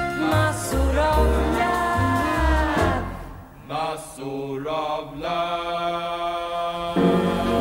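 Music: the closing instrumental bars of a revue song. Short bass notes come under gliding pitched lines at first, then a held chord, and a louder new chord comes in near the end.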